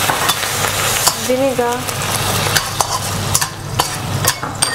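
Shallots, ginger and garlic sizzling in oil and soy sauce in a steel wok, with a metal spatula scraping and clicking against the wok as they are stirred.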